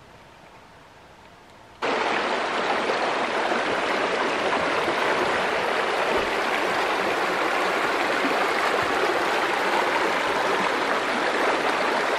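Shallow stream rushing and rippling over stones, a steady loud wash of water that cuts in suddenly about two seconds in; before that, only faint quiet.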